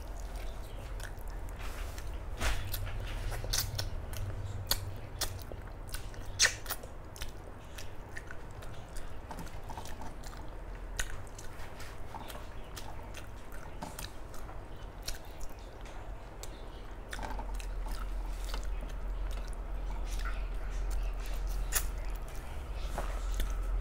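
Close-up chewing and biting sounds of someone eating a rice meal, with irregular wet clicks and smacks. A low steady hum sits underneath and gets louder about two-thirds of the way in.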